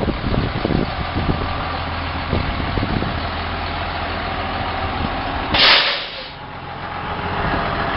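2003 International 7400 plow truck's diesel engine idling steadily, with a few low thumps in the first three seconds. About five and a half seconds in, a short, loud hiss of air is released from the truck's air-brake system.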